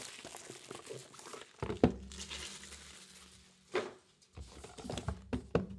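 Handling noise from cardboard trading-card boxes: light rustling and a few soft knocks as a box is moved and set down on the table.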